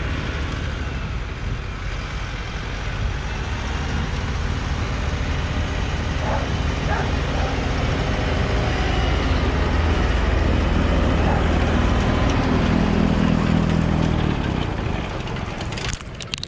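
Small tractor engine running steadily with the PTO-driven snowblower attachment turning, a steady hum under a wide rushing noise. It grows a little louder in the middle and drops off shortly before the end.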